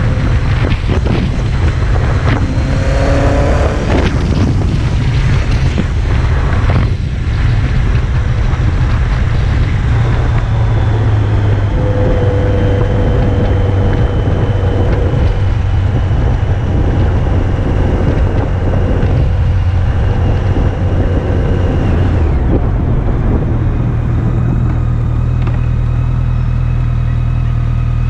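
BMW K-series "flying brick" motorcycle engine running while the bike is ridden, with its note dropping about twenty-two seconds in.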